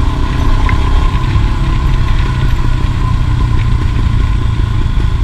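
Royal Enfield Himalayan's 411 cc single-cylinder engine running steadily.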